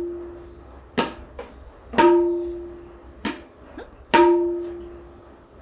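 Tabla struck by hand, four single strokes about a second apart. Two of them ring on with a clear pitched note that fades over about a second; the other two are short and dry. At the start, the ring of an earlier stroke is still fading.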